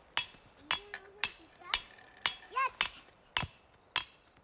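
Repeated sharp strikes at a steady pace of about two a second, each with a brief metallic ring, like hammer blows. A child's voice is heard briefly.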